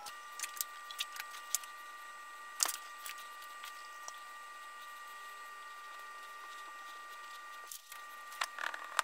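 Oil-bonded casting sand being packed into a wooden flask with a wooden block: scattered soft taps and clicks, with one louder knock about three seconds in. A steady high-pitched electrical whine runs underneath.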